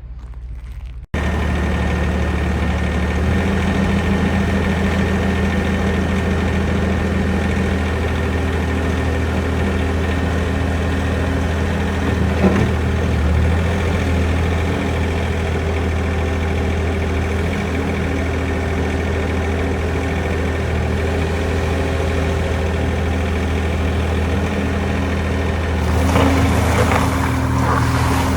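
Bobcat S450 skid steer's diesel engine running steadily, jumping abruptly louder about a second in. There is a single sharp knock around the middle, and more clatter near the end.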